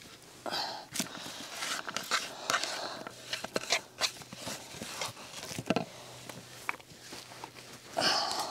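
Irregular knocks and clicks of a knife on a chopping board while chillies, garlic and ginger are cut up, with short bursts of rustling.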